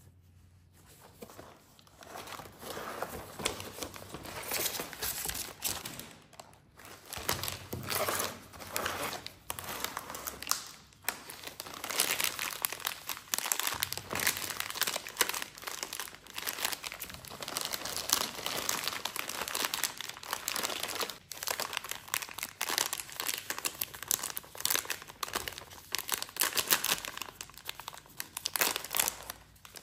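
Plastic candy wrappers of Bazooka Rattlerz chewy-candy bags crinkling and rustling as they are handled in disposable plastic gloves, in irregular bursts; near the end a bag is torn open.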